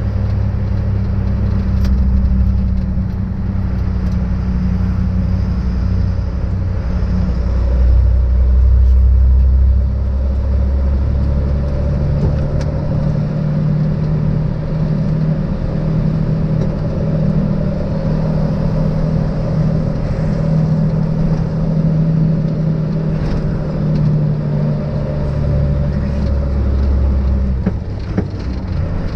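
MAN truck's diesel engine running while driving, a steady low drone picked up from atop the cab. About twelve seconds in, the engine note shifts higher.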